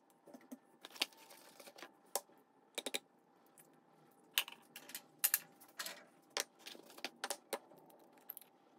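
Irregular sharp clicks and light taps of hands working over a glass mixing bowl: yogurt spooned in from its tub and an egg cracked and dropped in, with a few quick double taps.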